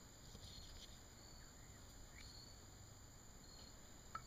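Near silence: faint room hiss with a few faint high chirps, then a light metallic click near the end as a valve-train part is handled on the Honda F22B1 cylinder head.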